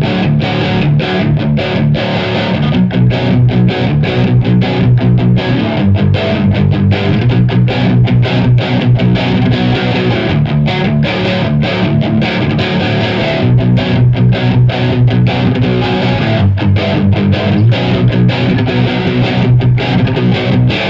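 Electric guitar played through a Sovtek MIG 100H valve amp head into a Marshall speaker cabinet: chords strummed in a fast, even rhythm. The playing stops abruptly near the end.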